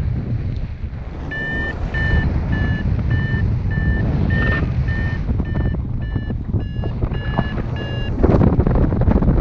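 Paraglider's variometer beeping, about two short beeps a second at a steady pitch, the tone that signals the glider is climbing in lift. Wind rushes steadily over the microphone and gusts louder near the end.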